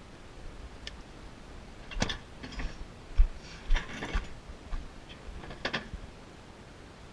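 A series of irregular clicks, knocks and short rattles from objects being handled and set down, bunched between about two and six seconds in.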